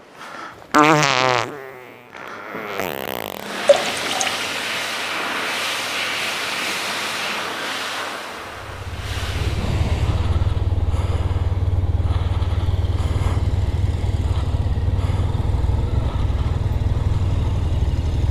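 A short, loud wavering noise and then a few seconds of steady rushing noise in a washroom, followed from about eight and a half seconds in by a motorcycle engine running with a steady low rumble as the bike rolls slowly across a fuel station forecourt.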